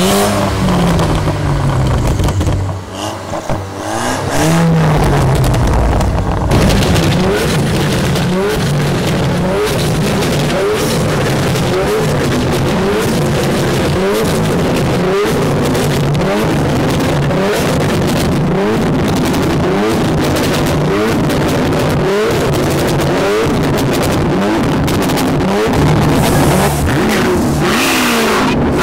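Modified car exhausts being revved. First come a couple of throttle blips, falling then rising in pitch. From about six seconds in there is a long run of quick repeated revs, each rising in pitch, about once a second.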